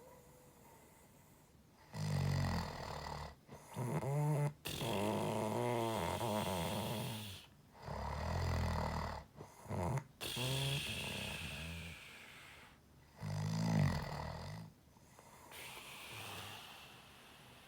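A sleeper snoring with a pig-like, grunting sound: about seven rattling snores, each one to three seconds long, separated by short quieter breaths.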